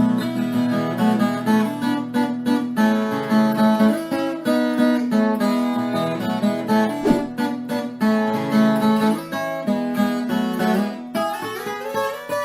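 Instrumental moda de viola: acoustic plucked strings, picked and strummed in a steady rhythm.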